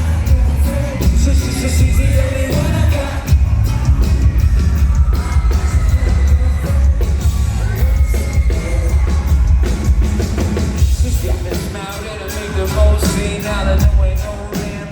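Live band performing a pop-rap song: sung vocals over heavy bass and drums, loud and full. The bass drops out briefly about twelve seconds in.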